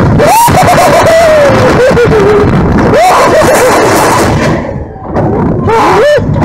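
Roller coaster riders screaming in repeated wavering cries over loud wind buffeting and ride rumble on the microphone, with a brief lull about five seconds in.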